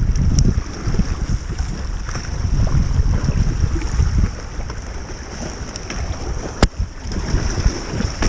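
Wind buffeting the microphone in a rumble that rises and falls. A single sharp click comes near the end.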